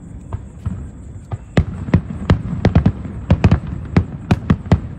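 Aerial firework shells bursting in an irregular barrage of sharp bangs, several a second, growing louder and denser about a second and a half in.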